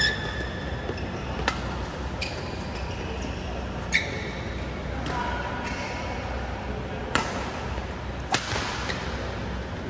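A badminton rally: sharp racket strikes on the shuttlecock every one to three seconds, with brief shoe squeaks on the court mat, echoing in a large hall.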